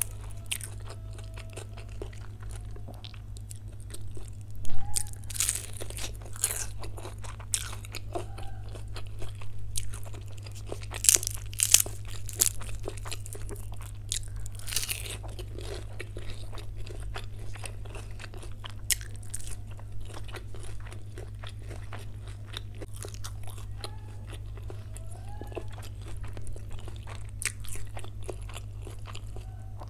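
Close-up eating sounds: crisp bites into a fried spring roll and chilli chicken, then chewing with wet mouth clicks. The loudest crunches come about five, eleven and fifteen seconds in. A steady low hum runs underneath.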